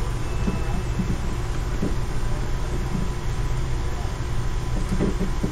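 Steady low background hum, with a brief faint voice about five seconds in.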